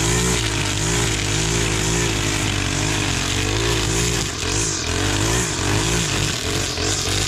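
Stihl KM 131 R KombiMotor's small 4-MIX engine running under load while cutting brush, its pitch wavering up and down over and over as the throttle is worked.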